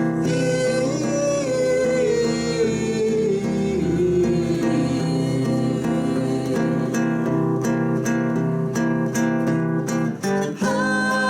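Acoustic guitar playing in a live song, with a held, sliding melody line over it in the first half.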